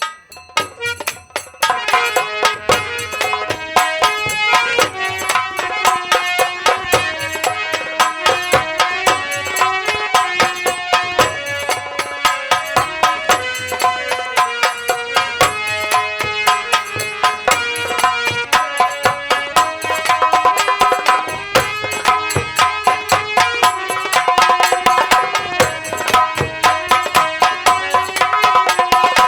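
Live Indian folk-theatre band playing an instrumental interlude: fast, steady hand-drum strokes under a sustained melody line. The music starts about a second in.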